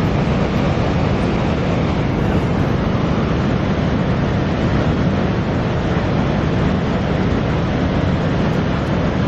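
Waterfall pouring, a steady, loud rush of falling water.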